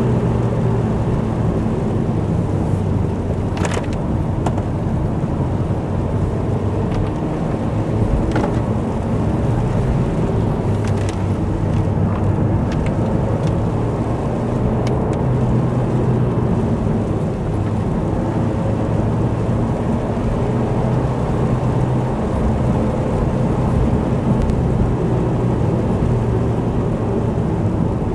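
Vauxhall Corsa driving steadily on a wet road: an even engine drone and tyre hiss under wind rumble on the outside-mounted camera, with a few faint ticks along the way.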